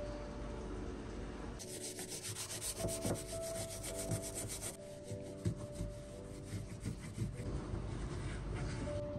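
Small stiff brush scrubbing the stainless steel gas hob around a burner in quick back-and-forth strokes, strongest for a few seconds from about a second and a half in, then softer rubbing as a microfiber cloth wipes the steel.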